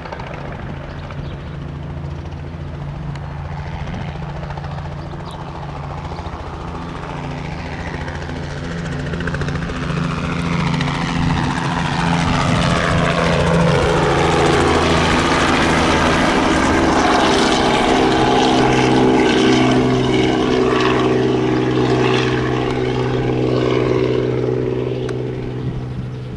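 Robinson R44 Raven II helicopter, with its six-cylinder Lycoming piston engine and two-blade rotor, taking off and flying past. The steady low rotor and engine sound grows louder through the middle and falls in pitch as the helicopter passes close. It eases a little near the end as the helicopter climbs away.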